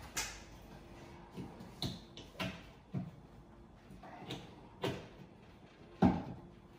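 A string of irregular sharp knocks and clicks from hands working at the back of a washer dryer, handling its hoses and fittings against the casing. The loudest knock comes about six seconds in.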